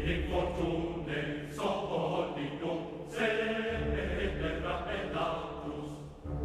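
Background music with sustained, choir-like singing.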